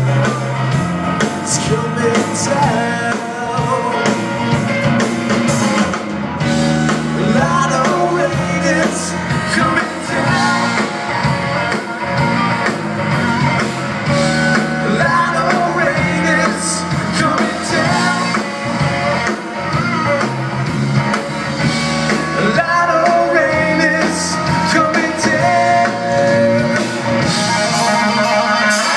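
Live blues-rock band playing: electric guitar over bass and a drum kit, with a voice singing.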